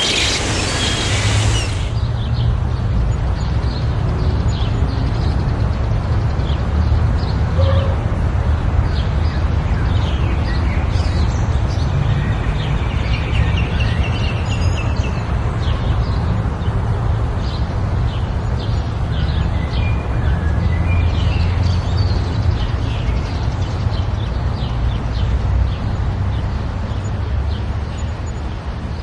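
Small birds chirping in many short, scattered calls over a loud, steady low rumble of wind or surf. The sound changes abruptly about two seconds in, from a brighter, hissier sound to the rumble and chirps.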